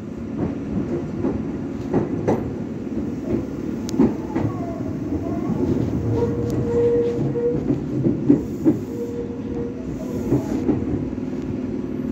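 Meitetsu electric train running, heard from inside the car: a steady rumble with wheels clicking over rail joints, and two short steady squeals about six and eight seconds in.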